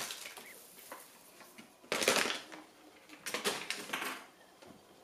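Brown paper bag being handled and crinkled: one short crinkle about two seconds in, then a few smaller rustles and crackles.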